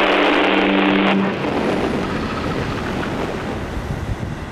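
A loud rushing noise with steady held low drone tones cuts off sharply about a second in. A quieter, even rushing noise follows and slowly fades.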